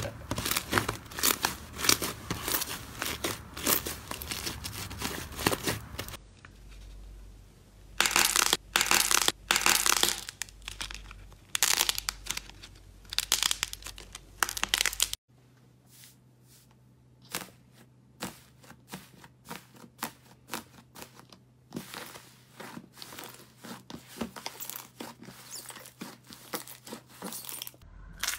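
Hands squeezing, poking and kneading slime, giving dense runs of sticky crackles and small pops. The sound comes in several segments that change abruptly as different slimes are played with.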